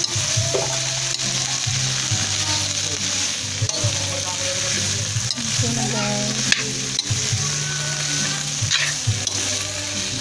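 Long beans, tomatoes and garlic sizzling as they are sautéed in a hot metal pan, with a spatula scraping and knocking against the pan now and then as the vegetables are stirred.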